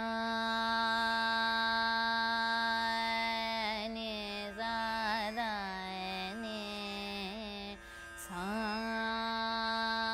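Female vocalist singing long held notes of Raag Bageshri in the lower octave, with small wavering ornaments and glides between notes, over a plucked tanpura drone. About eight seconds in she breaks briefly, then slides up into the next held note.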